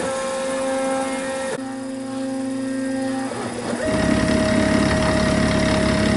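Milling machine taking a ball end mill pass across cast iron. A steady mechanical whine shifts pitch abruptly a couple of times as the machine's motion changes, then runs fuller and louder from about four seconds in.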